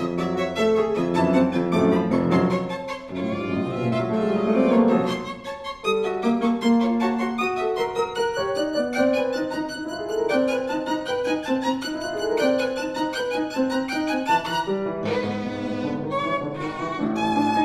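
Violin and piano playing a 20th-century classical duo together: the bowed violin in quick, busy lines over the piano, with a brief drop in level about five and a half seconds in.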